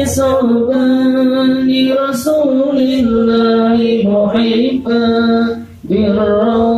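Intro music: a singing voice holding long, steady notes that change pitch every second or so, with a short break near the end.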